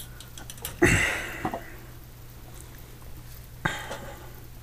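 A short cough-like noise from a person about a second in, then a shorter, weaker one near the end, over a steady low hum.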